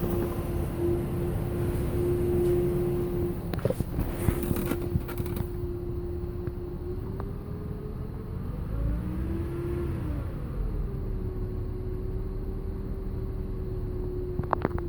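2000 Toyota Avalon's 1MZ-FE V6 running with a steady humming tone over the engine's low rumble, the hum's pitch sagging and rising again about halfway through. The owner traced the hum to a failing alternator. A few short knocks sound around four to five seconds in and near the end.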